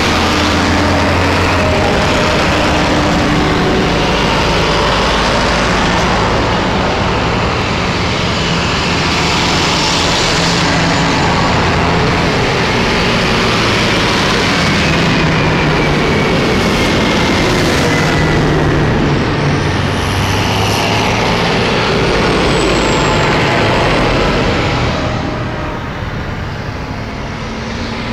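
A procession of farm tractors driving past close by, one after another. Their diesel engines run loud over steady tyre noise on tarmac, and the engine notes rise and fall as each one passes. A thin high whistle comes and goes about two-thirds of the way through.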